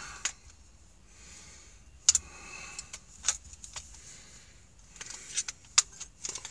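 Metal hand tools being handled, a screwdriver and a pair of adjustable pliers clicking and clinking: a scattered string of sharp clicks, with a short rattle about two seconds in.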